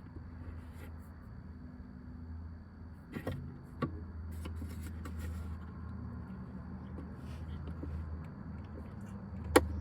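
Plastic dashboard trim being handled and pried, with a few faint clicks and one sharp snap near the end, over a steady low hum.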